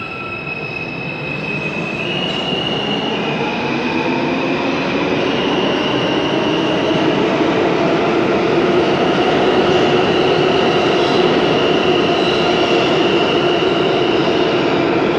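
R160A-2 subway train's Alstom propulsion accelerating away from the platform: a whine that climbs in pitch in steps and grows louder over the first half, then holds, over the rumble and grinding of steel wheels on the rails.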